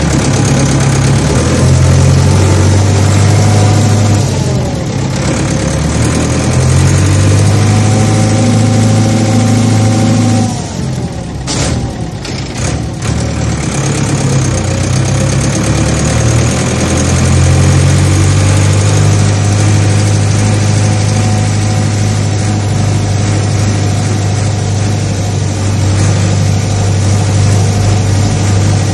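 Farm machinery engines running steadily under load, a deep hum with a fainter whine above it. About eleven seconds in the sound dips briefly with a few sharp clicks, then the engine runs on.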